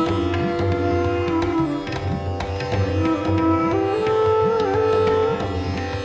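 Instrumental background music: long held string notes that slide in pitch, over a steady low drum pattern.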